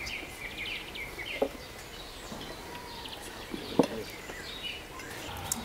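Small birds chirping in the background of an outdoor meal, with cutlery knocking against plates a few times. The loudest knock comes a little under four seconds in.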